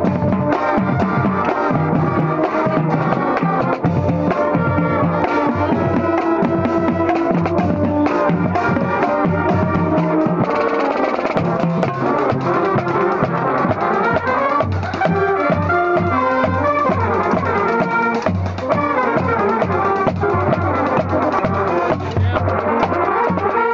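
Marching band playing a tune loudly: brass including sousaphones and trombones over a steady beat from bass drums and other drums.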